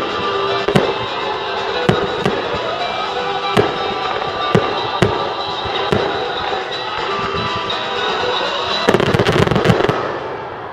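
Aerial firework shells bursting in a string of separate sharp bangs over loud show music. Near the end comes a rapid flurry of cracks as a big shower of sparks goes off, then the music fades away.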